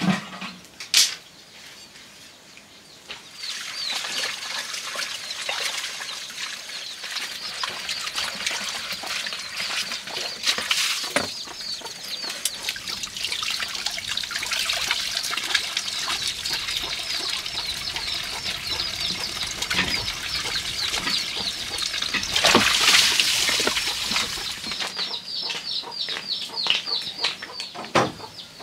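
Water running from a pipe and splashing as things are washed under it, loudest near the end of the washing. A few sharp knocks of pots or utensils come in between.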